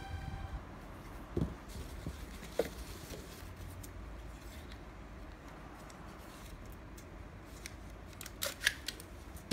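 Faint handling noise from gel blaster parts being lifted out of a foam-lined hard case: a few light clicks and knocks, twice early and a small cluster near the end, over a low steady hum.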